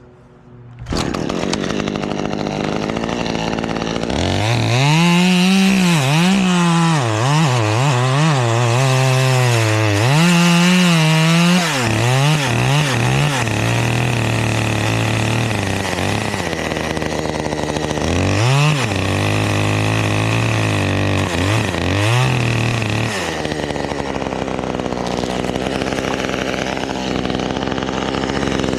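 Two-stroke chainsaw cutting wood, its engine revving up and down over and over as the chain bites, then running more steadily near the end.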